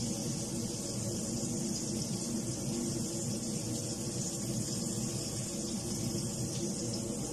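Floured pieces frying in shallow oil in a pan, a steady sizzling hiss with a low rumble underneath.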